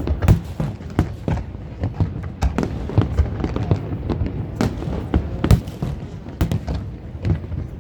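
Aerial fireworks bursting: a rapid, irregular run of sharp bangs and thuds over a continuous low rumble of overlapping explosions, with the loudest reports coming every second or so.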